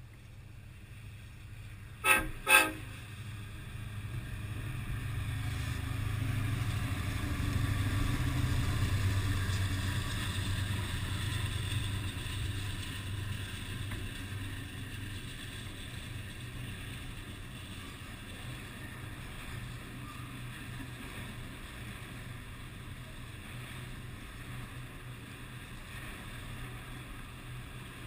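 Diesel freight locomotive sounds two short horn blasts about two seconds in. Its low rumble then builds as it passes and gives way to the steady rumble of autorack freight cars rolling by.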